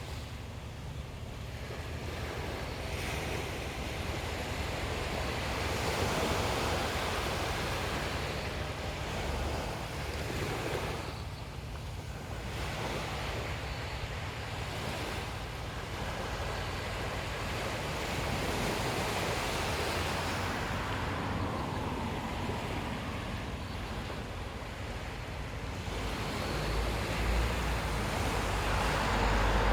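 Ocean waves breaking and washing up a beach, the surf swelling and fading every few seconds, with a low rumble growing near the end.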